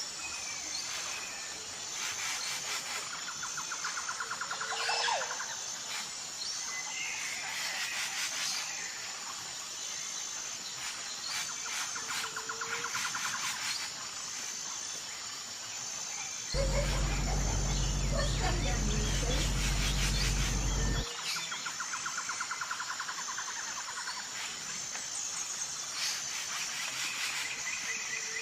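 Outdoor ambience with a steady, rapidly pulsed high trill like an insect and a short call that repeats about every five seconds. A loud low hum comes in about two-thirds of the way through and stops suddenly about four seconds later.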